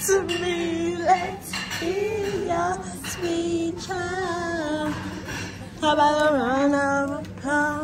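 A woman singing, in short phrases of held notes with a wavering pitch.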